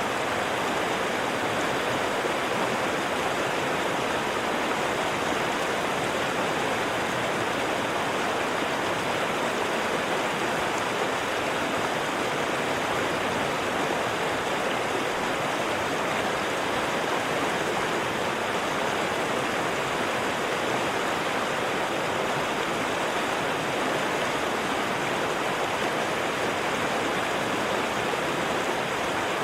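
A river's water rushing steadily, an even, unbroken flow with no separate splashes or changes.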